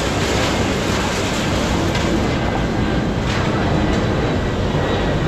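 Heavy scrapyard material handler's diesel engine running steadily, a continuous rumble with a hiss on top.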